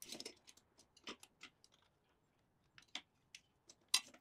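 A homemade drill press hold-down lock being tried by hand for the first time: light, scattered metal clicks and taps as its parts are set against the column and table, the loudest a little before the end.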